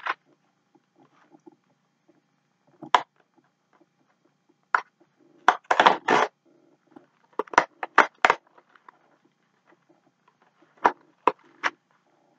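Cardboard Twinkies snack box being torn open and handled: short crackling, tearing rustles in about five separate spells, with quiet between them.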